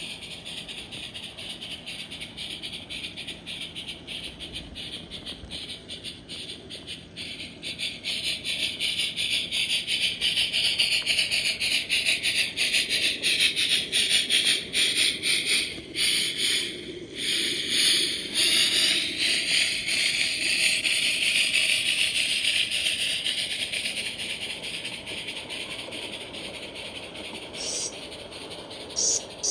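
Accucraft K-27 live-steam model locomotive running, its exhaust a rapid, steady chuffing with steam hiss. It grows louder as the engine draws near, is loudest for some seconds in the middle, then fades as it moves away.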